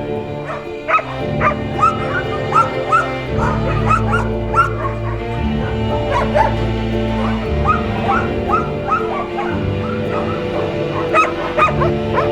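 Dogs whimpering and yipping in many short, rising cries, over slow background music with sustained low notes.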